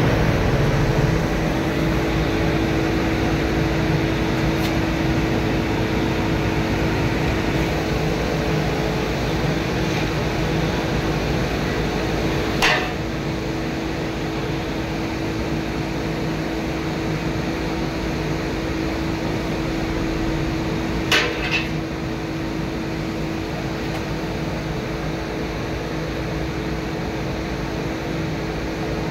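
Steady drone of running foundry machinery, like a large fan or blower, with a low hum. A sharp clank sounds about 13 seconds in, and a quick double clank follows about 21 seconds in.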